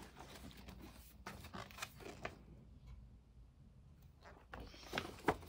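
Soft paper rustles and light ticks as the pages of a picture book are handled and shifted, with a quieter stretch in the middle.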